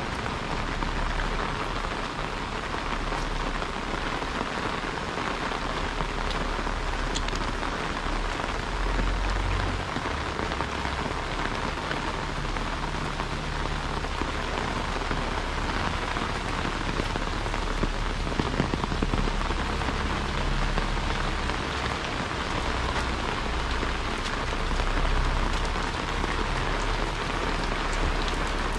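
Heavy rain falling steadily, a dense, unbroken hiss of drops on the ground and surfaces. A low rumble comes and goes underneath.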